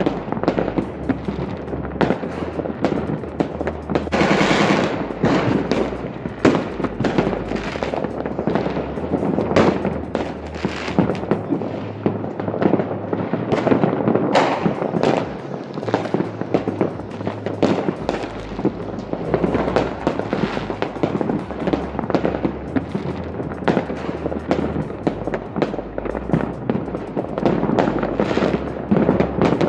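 Many fireworks going off across a town at once: a dense, unbroken crackle of distant bangs and pops, with a louder burst about four seconds in.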